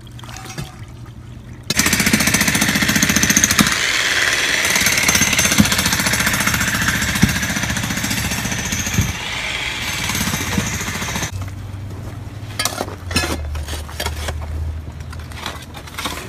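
Flushed toilet water gushing out of the open end of a white PVC drain pipe into a dirt trench: a loud rushing splash that starts suddenly about two seconds in, slowly eases, and cuts off around eleven seconds. The flow shows the drain line carrying the flush through to its outlet.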